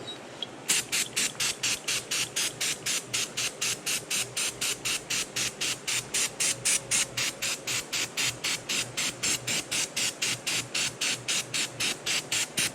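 Hand trigger spray bottle squirted rapidly to wet down and clean a part. The sprays come in short hissing bursts, about four a second, starting under a second in.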